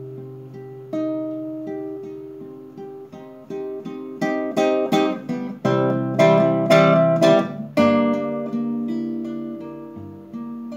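Classical guitar played solo: fingerpicked notes that build to louder strummed chords about halfway through, then settle back to single picked notes.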